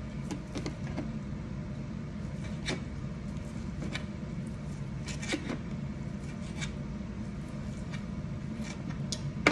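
A knife slicing through cooked chicken on a plate, giving scattered soft clicks and scrapes as the blade meets the plate, over a steady low hum.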